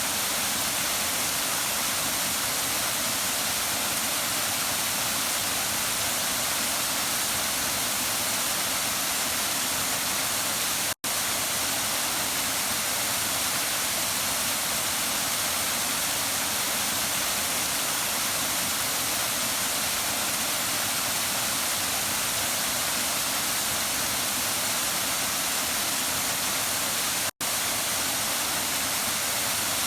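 Waterfall: a steady, even rush of falling water with a bright, hissy top. It cuts out for an instant twice.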